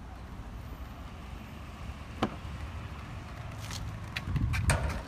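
A single sharp tap about two seconds in, then a cluster of clicks and scuffs near the end as hands and shoes catch on the rungs fixed to a cinder-block wall, over a steady low outdoor rumble.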